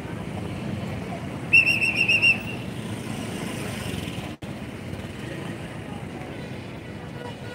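A whistle blown in a quick run of about seven short, shrill blasts, about a second and a half in, over a steady background rumble of people and vehicles.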